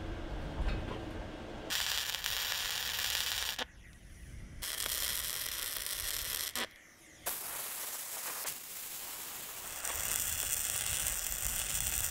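MIG welder arc crackling and hissing on steel in three runs. The first starts about two seconds in and lasts about two seconds, a second follows after a short pause, and a longer one begins about seven seconds in.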